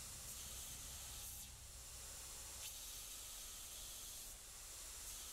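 Faint, steady hiss of a TW-90 2x72 belt grinder's horizontal surface-grinding attachment grinding a steel workpiece under cool mist, over a low hum from the machine. The hiss swells and eases a few times as the pass goes on.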